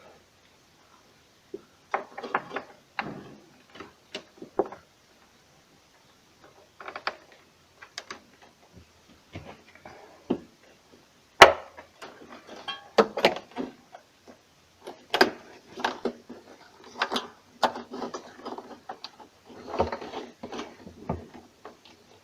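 Hands fitting wire connectors and a refrigerator's defrost bimetal thermostat back into place: scattered clicks, taps and rustling, the loudest a sharp click about eleven seconds in.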